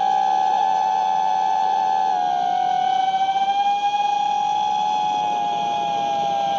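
Eachine Tyro109 FPV quadcopter's brushless motors and propellers whining at a steady high pitch that drifts slightly up and down as the craft flies.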